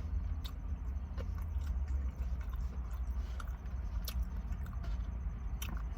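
Chewing and biting into crispy fried chicken tenders, with a few sharp crunchy clicks, over a steady low rumble.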